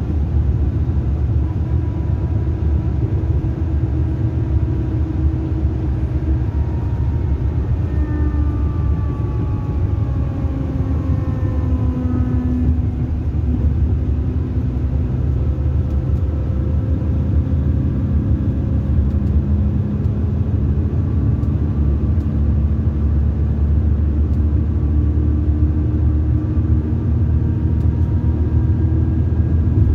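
Mercedes-Benz coach heard from inside the passenger cabin while under way: a steady low drone of engine and road. Faint whines slide down in pitch about ten seconds in, and steady whines follow later.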